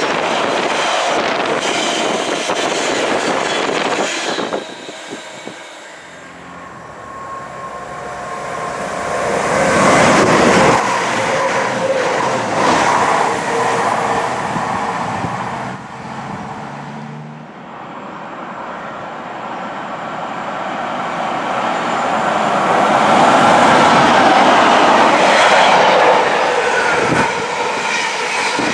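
A long intermodal container freight train rolls past close by, its wagon wheels clattering over the rail joints. The sound cuts off abruptly about four seconds in. It then builds again as trains approach: a CrossCountry Voyager diesel unit, and then another container freight train, the loudest passing near the end.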